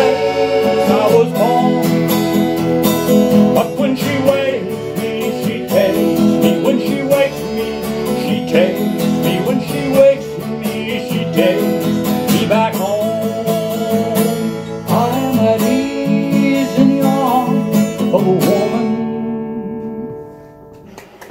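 Acoustic guitar strumming with a piano accordion playing along. The music reaches its final chord and dies away near the end.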